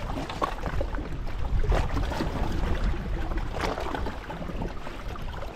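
Wind rumbling on the microphone with water lapping against a plastic kayak hull, and two short sharp noises about two seconds apart.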